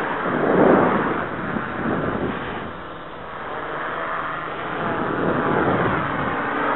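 Quadcopter's electric motors and propellers whirring in flight, the pitch wavering up and down as it manoeuvres and the sound fading a little in the middle.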